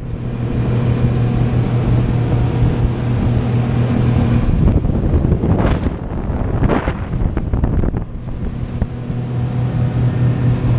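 Twin outboard motors running at speed, a steady low drone under heavy wind noise on the microphone and the rush of spray off the hull. The noise swells twice, about six and seven seconds in.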